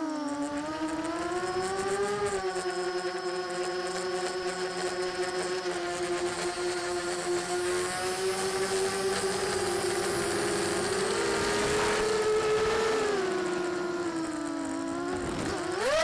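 Vortex 250 Pro racing quadcopter's motors and propellers whining in flight, the pitch shifting up and down with throttle and climbing sharply near the end.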